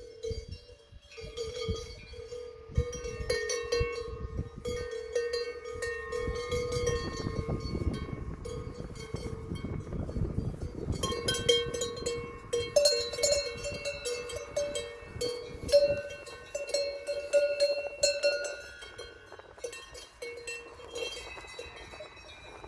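Cowbells on grazing cows' collars clanking and ringing irregularly as the cows move, at least two bells of different pitch sounding together.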